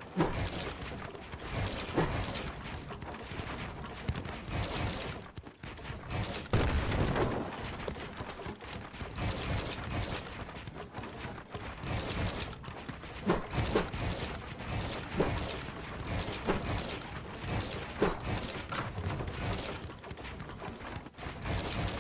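Typing on a Ziyoulang T60 mechanical keyboard: a continuous, uneven stream of key clicks and clacks, with a few louder strokes along the way.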